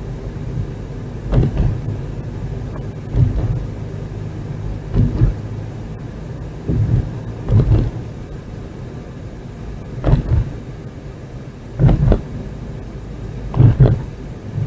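Car in motion, heard from inside the cabin: a steady engine and road hum, broken by a short low thump every one to two seconds.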